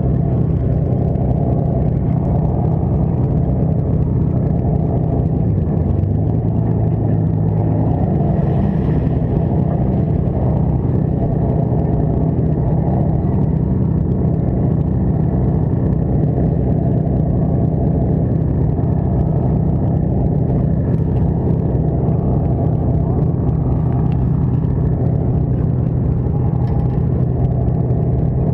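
Party boat's engine running with a steady low drone, its pitch shifting briefly about six to eight seconds in.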